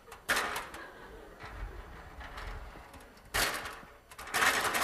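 Metal stepladder being moved about, with a few short clattering, scraping noises: one just after the start, one at about three and a half seconds and a longer one near the end.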